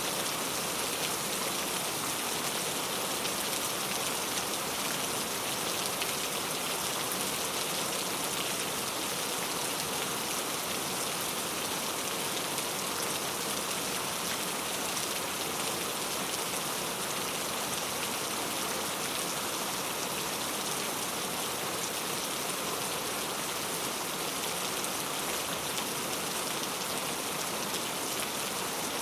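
Heavy rain falling steadily, an even hiss of many drops with no pauses or changes in strength.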